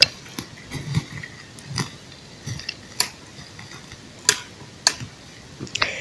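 Small campfire of dry twigs crackling just after lighting: scattered sharp pops and snaps.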